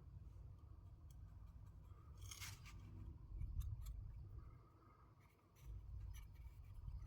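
Faint handling noises: scattered light clicks and one short scrape or rustle about two and a half seconds in, over a low steady hum.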